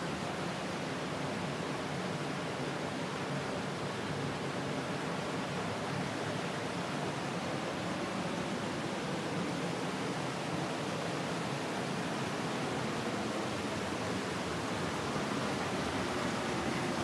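Steady rush of white water pouring through the fish-passage outlet below, a little louder near the end.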